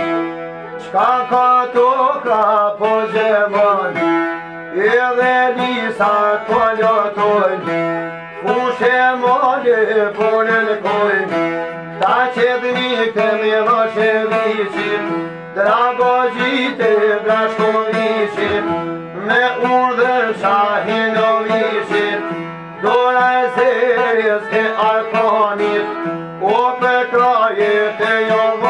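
Albanian folk song. A man sings over a strummed long-necked lute and a violin, in phrases broken by short pauses every few seconds.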